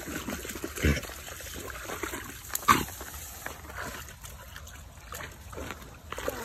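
Two Alaskan malamutes wading and splashing through a shallow muddy puddle, irregular sloshing of water under their paws, with two louder splashes about a second in and again a couple of seconds later.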